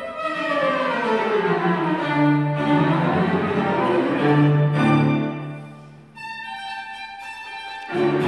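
Violin and cello playing a tango milonga. A falling run opens it, then low bowed notes sit under the melody. About six seconds in, the low part drops out and the violin carries on alone in high notes until the fuller texture returns near the end.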